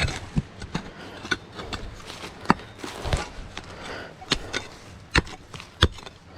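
Shovel digging into the ground, its blade striking something hard in a series of sharp, irregular hits, about ten. The buried target is a large object that the digger takes for a big piece of iron.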